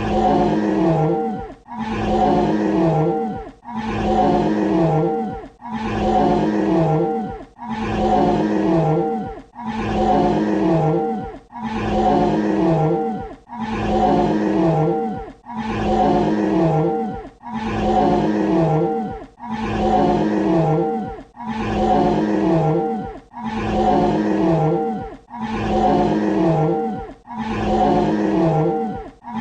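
Dinosaur roar sound effect: the same roar, about two seconds long, repeats over and over in a seamless loop. Each roar drops in pitch at its end, followed by a brief dip before the next.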